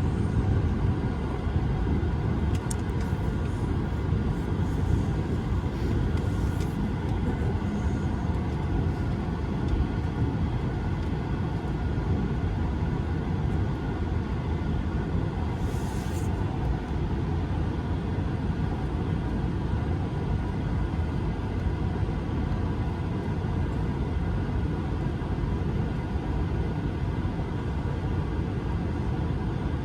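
Cabin noise of an Airbus A220-300 taxiing: its Pratt & Whitney PW1500G geared turbofans at low power give a steady low rumble with a faint steady whine above it.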